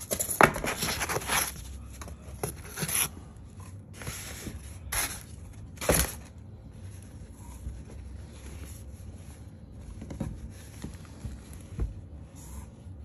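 Styrofoam insulation panels and cardboard of a shipping box scraping and rubbing as they are pulled out, loudest in the first few seconds with a few sharp scrapes a little later. Then quieter scratchy handling of a cloth snake bag on a table.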